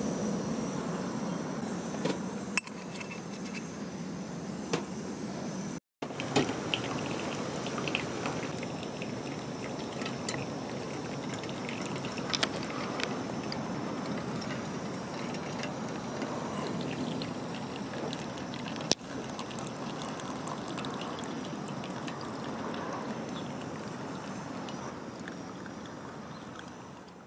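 Pour-over coffee brewing at a camp table: liquid pouring and trickling through paper drip filters into metal cups, over a steady hiss, with a few light clicks.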